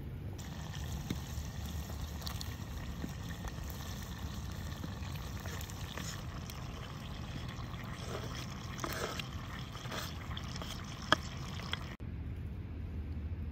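Ingredients being added to a clay cooking pot of chopped tomatoes, heard as a pouring, trickling sound with scattered small clicks and one sharp click near the end, over a low outdoor rumble.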